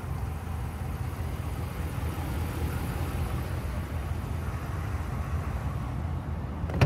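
A 5.7-litre HEMI V8 in a Ram 1500 pickup idling steadily, a low, even rumble. A sharp click comes at the very end.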